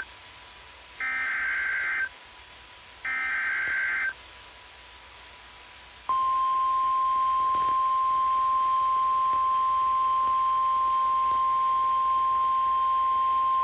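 Emergency Alert System SAME header on a weather-radio alert: two harsh, buzzy data bursts about a second long and two seconds apart. About six seconds in comes a single steady, loud NOAA Weather Radio attention tone, held to the end, signalling that a warning message follows.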